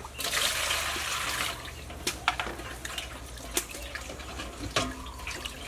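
Water poured from a plastic jug into a stainless steel basin for about a second and a half, then hands sloshing and splashing in the water with a few sharp splashes.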